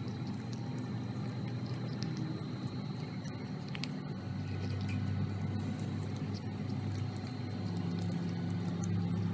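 A cat chewing raw chicken wings: wet, squishing chewing with small scattered clicks, over a steady low hum.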